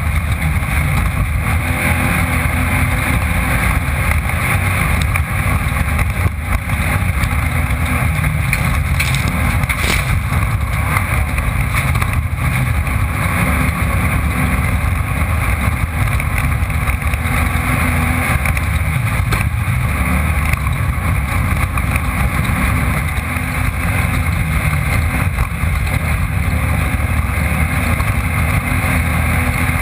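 Off-road race car's engine running hard under sustained throttle, heard from the onboard camera inside the car, with steady road and wind noise and a few short knocks.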